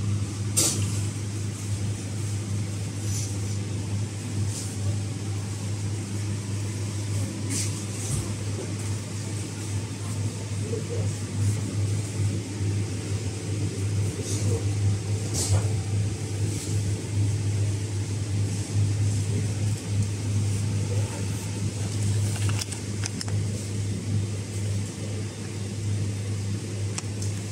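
A steady low hum that never changes, with a few brief clicks or rustles scattered through it.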